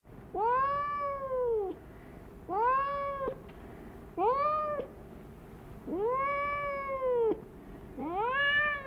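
Domestic cat meowing five times, each meow rising and then falling in pitch; the first and fourth are long, over a second each, and the others shorter.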